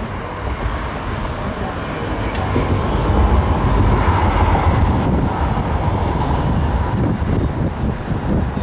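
Rumble of passing traffic, swelling to its loudest a few seconds in and then easing off.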